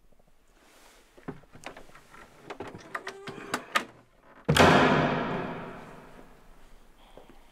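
Wooden wardrobe door slamming shut with a heavy boom that dies away slowly over about two seconds, after a few light knocks and clicks as it is pulled to.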